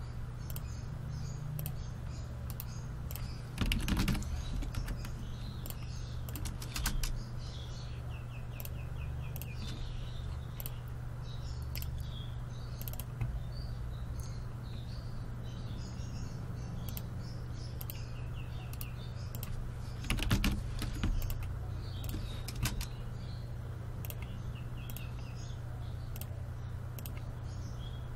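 Computer keyboard typing and mouse clicks, scattered and light, with a few louder knocks about four seconds in and again around twenty seconds in, over a steady low electrical hum.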